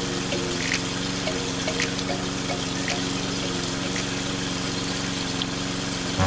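Small electric water pump running with a steady hum, water hissing out of a toy spray nozzle and spattering on soil.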